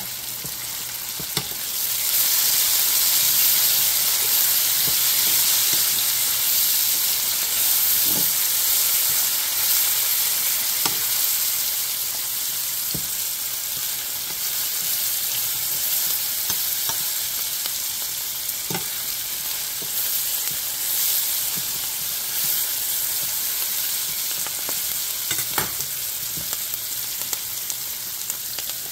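Sliced onions, sweet peppers and tomato frying in oil in a stainless-steel skillet: a steady sizzle that grows louder about two seconds in. A fork stirs the vegetables, with a few short clinks against the pan.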